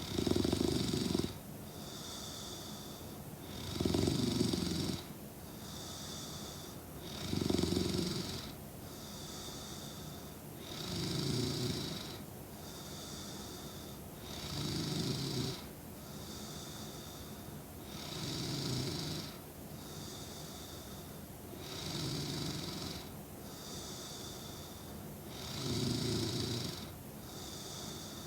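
A sleeping woman snoring in a slow, even rhythm: eight snores, one about every three and a half to four seconds, each lasting about a second, with a softer breath between them. The first few snores are the loudest.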